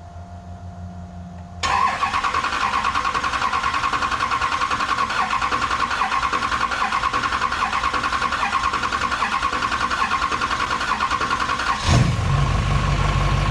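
Duramax LMM 6.6-litre diesel V8 being cranked on its starter, a fast pulsing crank with a steady whine for about ten seconds. It then catches near the end and settles into a steady, low idle.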